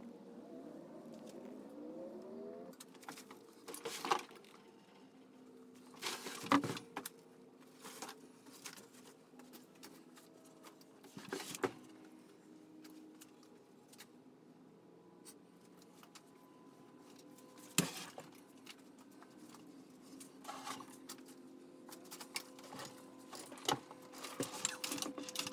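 Stepper motors of a shop-built CNC router whining: a rising whine for the first couple of seconds settles into steady tones, with a few sharp clicks and knocks scattered through.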